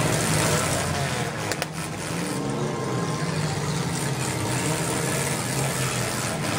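Several demolition derby cars' engines running and revving together in the arena, with a couple of sharp knocks about a second and a half in.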